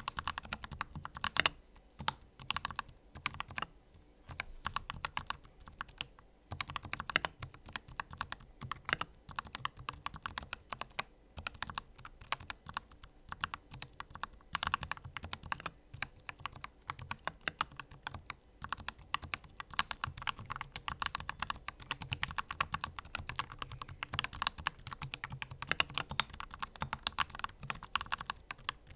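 Typing on an AKKO 5108S mechanical keyboard with Akko CS Lavender Purple tactile switches and ASA-profile Macaw keycaps: quick, irregular keystroke clacks with short pauses between bursts.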